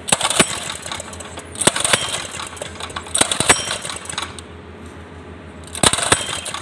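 Metal clicking and clattering in four short bursts as the throttle linkage and parts on a 196 cc small engine are handled, over a steady low hum.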